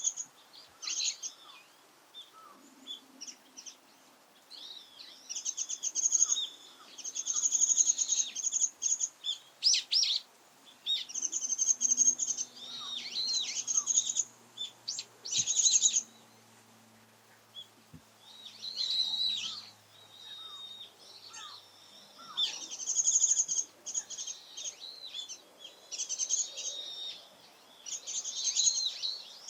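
Japanese white-eye giving repeated bursts of rapid, high-pitched twittering, each phrase about one to two seconds long with short pauses between, calling persistently as if asserting a territory.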